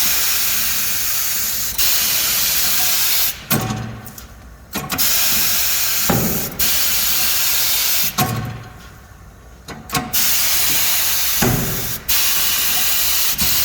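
Compressed air hissing from a pneumatic bead breaker on a tire changer as it is worked repeatedly to break a tire bead: four long bursts of hiss, with short low thumps in the gaps between them.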